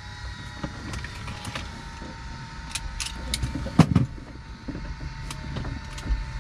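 Scattered clicks and knocks with rustling from someone moving about inside a parked light aircraft's cabin after engine shutdown, with one louder thump just before the four-second mark over a steady low hum.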